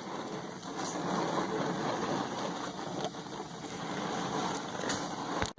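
Lit gas grill burners giving a steady rushing noise that cuts off suddenly near the end.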